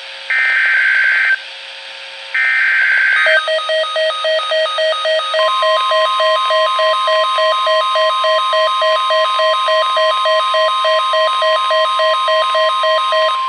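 NOAA Weather Radio EAS alert: the last two of the three raspy SAME digital header bursts, each about a second long with a pause between. A rapid pulsing electronic beep follows, and then the steady 1050 Hz weather-radio warning alarm tone sounds over it.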